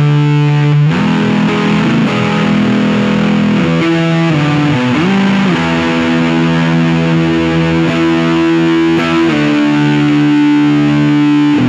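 Electric Stratocaster with Seymour Duncan P-Rail pickups, played through a Nux Mighty Lite BT amp with distortion: sustained, ringing power chords that change several times.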